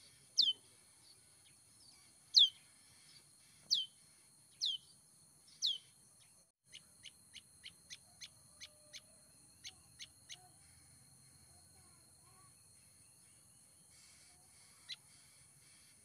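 Songbird calling: five loud, clear downward-sliding whistles about a second apart, then a quick series of about ten short, sharp notes, and one more note near the end, over a steady faint high hiss.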